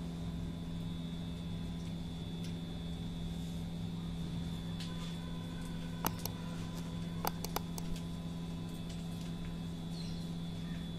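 A few sharp clicks and taps of hand work on a pipe fitting and its wiring, grouped about six to eight seconds in, over a steady low hum.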